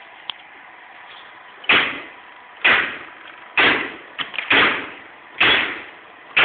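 Hammer blows on steel while a wire rope is worked in a bench vise to splice a superloop eye around a thimble: sharp metallic strikes about once a second, each ringing briefly, with a couple of light clicks between them.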